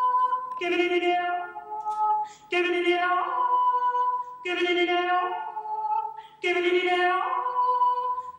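A woman's voice singing a short wordless phrase with sudden leaps in pitch, repeated about every two seconds, unaccompanied.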